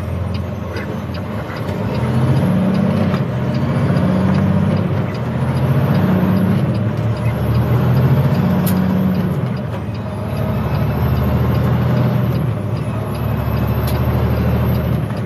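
Semi truck engine heard from inside the cab, pulling through traffic. Its pitch climbs and drops back several times, as with gear changes, over steady road noise.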